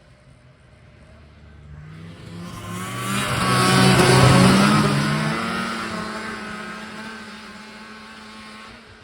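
A motor vehicle passing by: its engine and road noise swell to a peak about four seconds in, then fade away.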